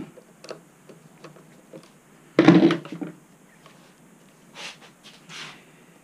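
Quiet handling noises as hands work at the tire and rail of a Onewheel Pint: scattered small clicks and knocks, one louder half-second noise about two and a half seconds in, and two short hisses near the end.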